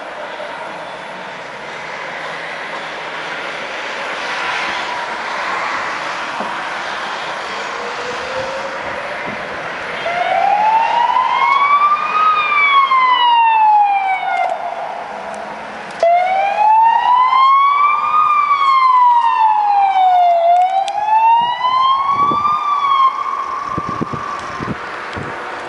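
Ambulance siren in a slow wail, its pitch gliding up and down about every four seconds. It is faint at first under street traffic noise, then loud as it draws close, cutting back in abruptly partway through.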